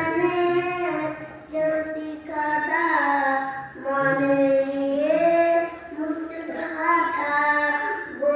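A young boy chanting a devotional song into a handheld microphone, in long drawn-out melodic phrases with brief breaks between them, about four phrases in all.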